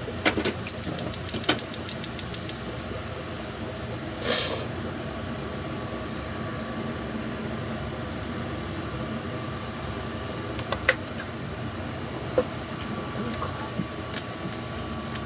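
Cooking oil glugging out of a plastic jug into a frying pan: a quick run of about seven glugs a second for the first couple of seconds, then a quieter steady pour. A short rustle comes about four seconds in, over a steady background hum.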